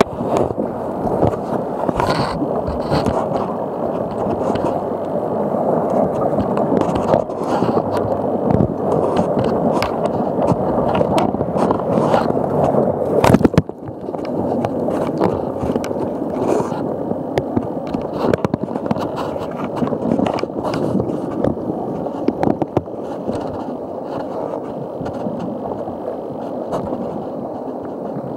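Muffled, continuous rubbing and scraping of fabric over a camera microphone, with frequent small knocks and one louder knock about halfway through.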